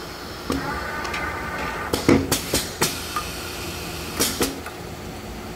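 Printing machine working: its metal mechanism clicks and clacks, with a brief whine from about one to two seconds in, a quick run of sharp clacks just after, and a louder knock about four seconds in.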